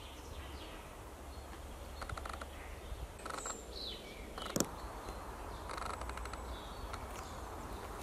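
Faint spring woodland birdsong: distant songbirds give short trills and high gliding calls now and then. There is one sharp tap about halfway through.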